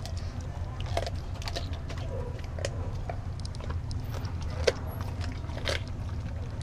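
Doberman chewing and crunching raw chicken on the bone: irregular crunches and clicks, the sharpest about four and a half seconds in, over a steady low rumble.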